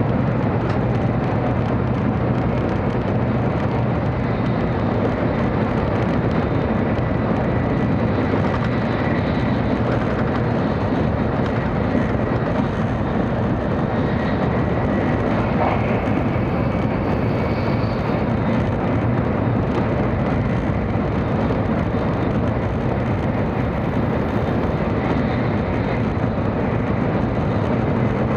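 Cabin running noise of a 700 series Shinkansen at speed: a steady low rumble with an even rushing hiss over it, unchanging in level.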